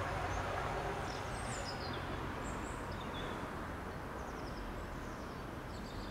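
Steady outdoor background noise with a low rumble, and faint birds chirping now and then.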